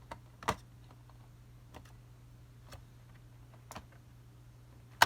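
Faint sharp clicks about once a second, then a louder clattering knock near the end, from handling a laptop hard drive and its parts on a work surface; a low steady hum sits underneath.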